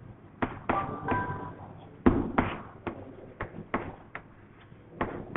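Chalk writing on a blackboard: a dozen or so irregular sharp taps as the chalk strikes and drags across the board, with a brief faint squeak about a second in.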